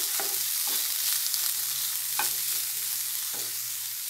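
Spatula stirring boiled sweet corn kernels in a nonstick pan to mix in the spices, with about four short scrapes against the pan over a steady hiss.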